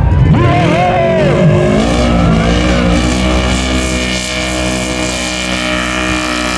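Engine of a lifted side-by-side UTV revving up and down, then held at steady high revs under full throttle from about two seconds in.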